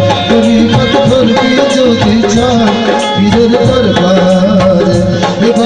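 Live qawwali music between sung lines: a wavering melody line over a steady hand-drum beat.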